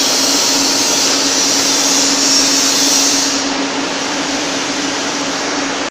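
Wire-wrapped (Johnson) screen welding machine running: a steady hiss over a steady low hum. The sharper part of the hiss eases off about three seconds in, and the sound stops abruptly at the end.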